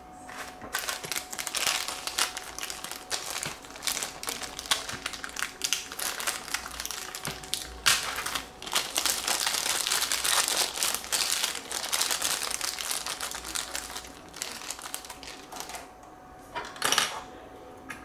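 Thin clear plastic parts bag crinkling and rustling as it is handled and pulled open by hand. A sharp click sounds about eight seconds in.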